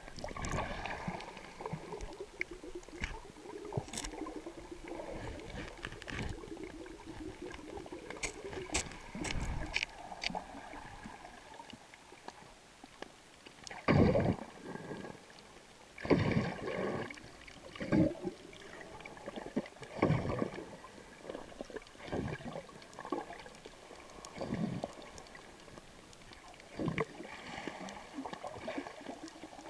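Muffled underwater noise picked up by a submerged camera: water sloshing and gurgling with irregular dull thumps, several heavier ones in the second half, and scattered sharp clicks.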